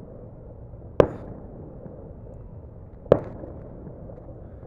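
Two fireworks bangs about two seconds apart, each sharp and trailing off in a short echo.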